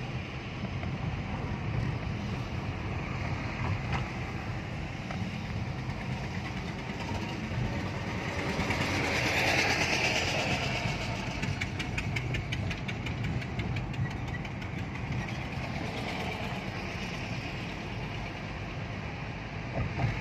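Steady road and engine noise heard from inside a moving car's cabin, with a louder rush about halfway through followed by a few seconds of rapid, even ticking.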